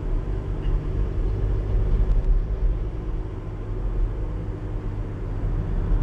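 Volkswagen Caddy van with a 2-litre engine, driving on the road, heard from inside the cabin: a steady low rumble of engine and tyre noise.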